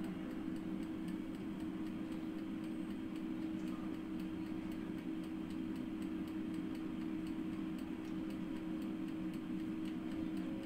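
Kiwi air fryer running: a steady hum from its fan and heater, with the fast, even ticking of its clockwork dial timer counting down the last seconds of the cooking time.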